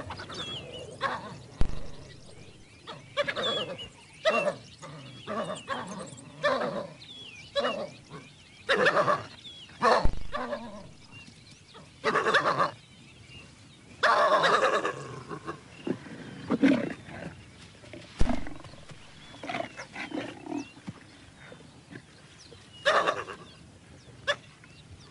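Lion growling and snarling in short, irregular bursts while it confronts wild dogs over a wildebeest kill.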